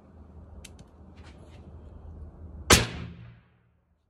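A single suppressed shot from a Thompson/Center Contender pistol with a 14-inch SSK .44 Magnum barrel and an Obsidian 45 suppressor, firing a supersonic 240-grain jacketed soft point: one sharp report about two and a half seconds in, with a short ringing tail. A couple of faint clicks come before it.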